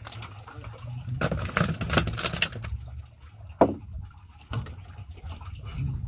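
Water splashing and dripping as a freshly caught grouper is handled and unhooked over the side of a small wooden boat. A burst of splashing comes about a second in and a sharp knock near the middle, over a steady low rumble.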